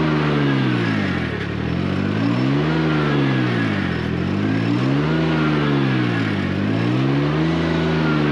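Vehicle engine working hard, its pitch sagging and climbing back three times while the stuck machine is rocked back and forth to get out of a ditch where its wheels are slipping.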